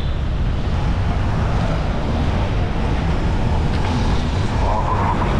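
Wind buffeting a GoPro's microphone while cycling at speed: a steady low rumble.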